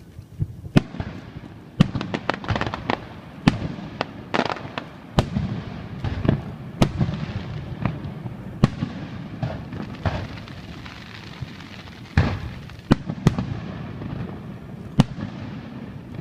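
Fireworks going off: a string of sharp, irregular bangs, sometimes several within a second, over a continuous low rumble and crackle.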